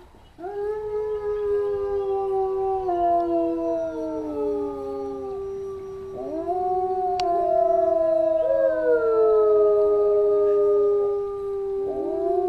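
Several wolves howling together in a group howl: long, drawn-out howls overlapping at different pitches, with new howls starting about six seconds in and again near the end.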